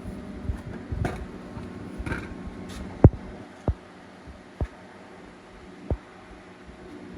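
Handling noise: a few brief scrapes, then four separate knocks over about three seconds, the first the loudest, over a steady low hum.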